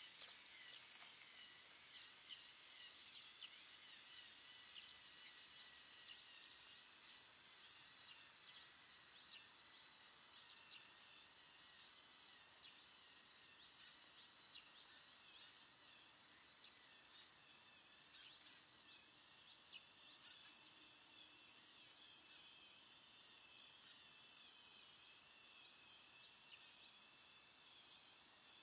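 Near silence: faint outdoor ambience, a steady high hiss with scattered faint chirps.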